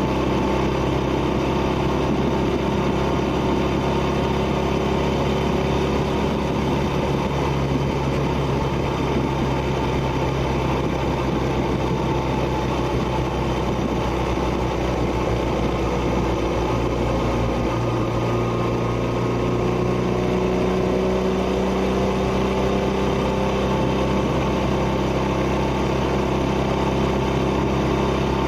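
1971 Honda Dream 250cc parallel-twin motorcycle engine and exhaust running steadily under way, heard from a camera mounted on the bike. The engine note shifts about eighteen seconds in, then slowly rises in pitch.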